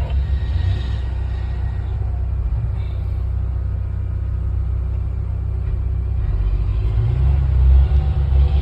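Excavator's diesel engine running with a low, steady rumble, getting louder about seven seconds in.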